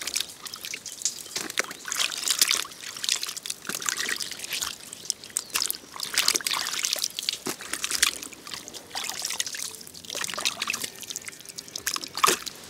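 Water sloshing and splashing in a large steel basin as hands rub and turn over bitter gourds to wash them, in irregular splashes. Near the end, water drips and trickles off gourds lifted out of the basin, with one louder splash.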